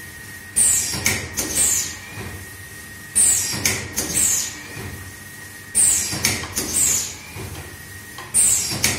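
Automatic powder packing machine running through its packing cycle. A group of clunks and short hisses repeats about every two and a half seconds, four times, over a faint steady high tone.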